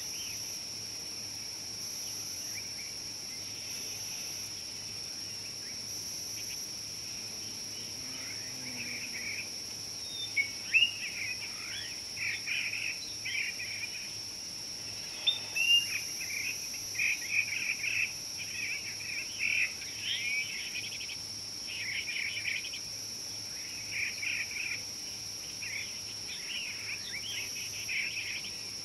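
Steady high-pitched drone of insects, with birds chirping in quick bursts of short whistled notes from about eight seconds in, a few of them louder near the middle.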